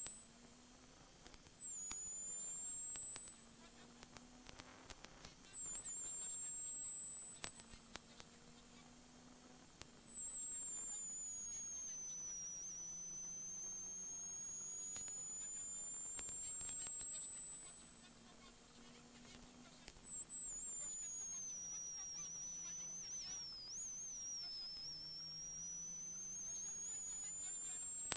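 Peugeot 106 XSi rally car driving at speed, heard from inside the cockpit as a high whine. The whine climbs as the revs rise and drops sharply at the upshifts in the first few seconds, then falls and climbs again more slowly through the bends. A faint lower engine note moves with it.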